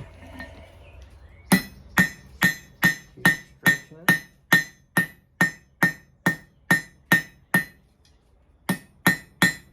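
Hand hammer striking hot steel bar on an anvil in a steady rhythm, a little over two blows a second, each blow ringing. The smith is drawing out the head sideways with the hammer's cross peen. The blows start about a second and a half in, pause briefly about eight seconds in, then resume.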